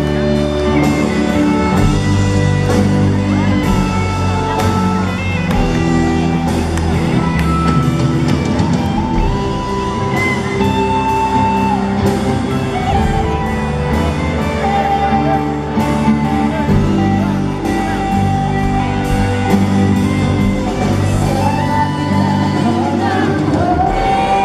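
A live rock band playing a slow ballad in a large hall, with electric guitar, bass and drums under a held melody and singing.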